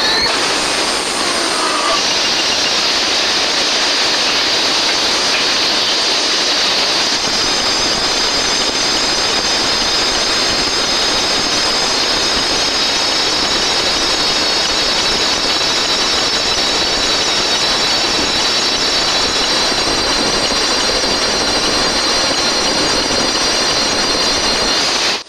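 Steady loud rushing roar of flames, with thin high ringing tones joining about seven seconds in.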